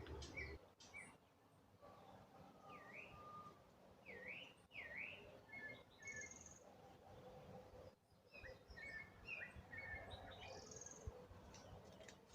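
Faint birdsong from several birds: scattered short chirps and a few down-and-up slurred whistles.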